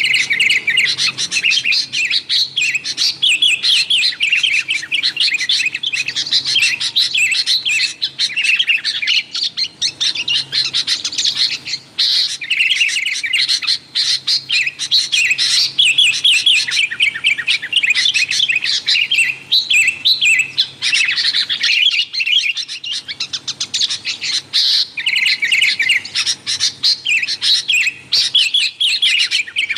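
Sooty-headed bulbul (kutilang) calling noisily: rapid, dense runs of chirps, nearly without pause, with a short lull about two-thirds of the way through.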